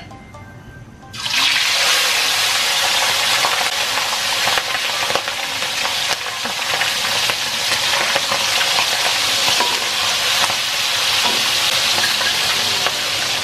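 Raw pork pieces hitting hot oil in a wok. A loud sizzle starts suddenly about a second in and carries on steadily as the meat deep-fries.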